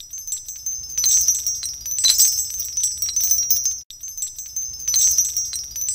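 Intro music of high, twinkling chime and tinkling sparkle sounds. It breaks off briefly about four seconds in, then the same tinkling starts again.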